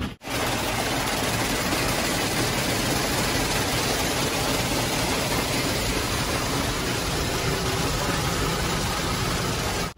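An automatic car wash spraying water and scrubbing over a car, heard from inside the cabin: a steady, dense rush of spray, broken once briefly just after the start.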